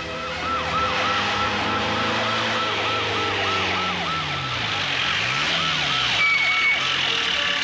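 Police siren in a fast yelp, about three falling sweeps a second, over the steady hiss of heavy rain.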